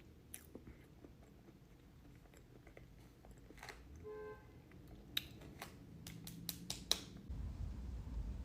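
Close-up mouth sounds of a person chewing a pastry, with a few sharp clicks about two-thirds of the way through. A steady low rumble comes in near the end.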